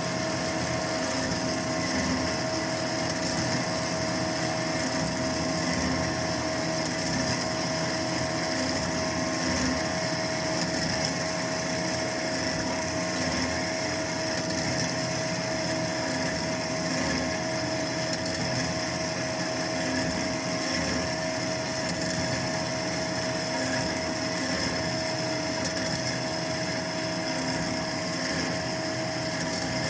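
A 70-year-old horizontal metal-cutting bandsaw running steadily partway through a long cut in metal bar stock: an even machine hum with a constant whine.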